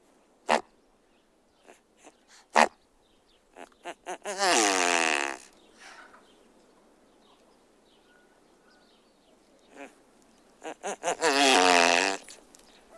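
Great bustard calling: a few sharp single notes, then a quick run of short notes that leads into a longer wavering call of about a second. The same sequence comes again near the end.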